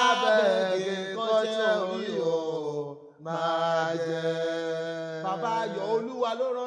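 Music: a voice singing a Yoruba song in long, wavering, chant-like phrases over a steady low sustained note, with a brief pause about three seconds in.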